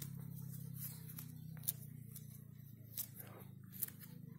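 Tangerine peel being torn off by hand: a few short crackling rips, three sharper snaps standing out in the second half, over a steady low hum.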